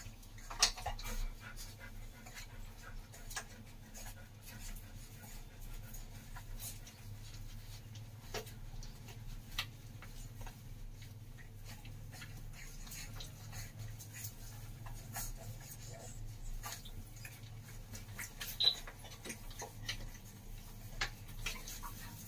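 A litter of Doberman Pinscher puppies nursing: quiet, irregular suckling clicks and smacks, with a low steady hum underneath.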